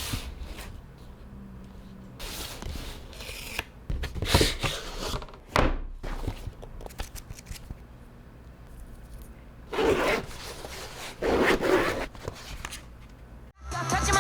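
Product packaging being handled and opened: short, irregular bursts of scraping, rubbing and tearing, with one quick falling sweep about five and a half seconds in. Electronic music starts just before the end.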